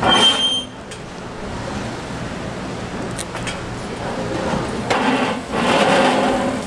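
Street-food stall ambience around a cast-iron wheel cake mold: a short ringing metallic clink at the start, then steady background noise, with a louder stretch of clatter about five seconds in.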